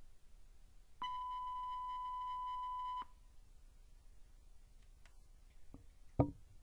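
A steady electronic beep at a single high pitch starts abruptly and holds for two seconds before cutting off. A few seconds later come a faint knock and then one sharp knock.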